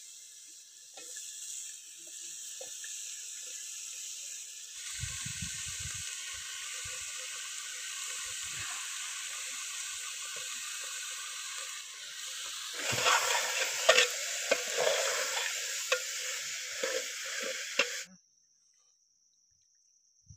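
Tomatoes and potato sticks frying in hot oil in a pot over a wood fire: a steady sizzle that grows stronger about five seconds in and louder again from about thirteen seconds, with sharp pops and ladle scrapes. It cuts off suddenly near the end.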